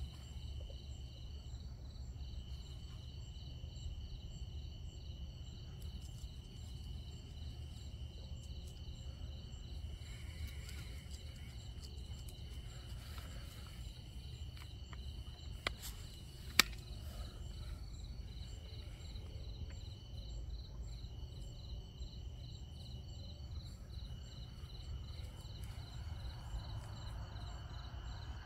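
Night insects such as crickets calling: a steady high trill with a faster pulsing chirp above it, over a steady low rumble. Two sharp clicks sound about sixteen seconds in.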